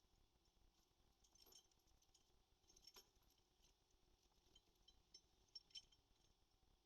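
Near silence broken by scattered faint, high clinks and ticks, the clearest about a second and a half in, at three seconds, and a close pair near the end.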